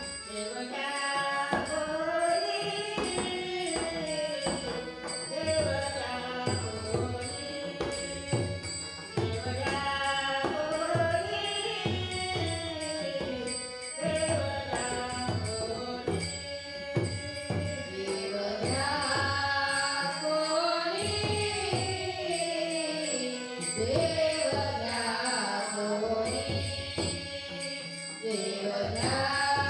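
A woman singing a Marathi devotional abhang in a bhajan, over a steady beat of drum and jingling percussion.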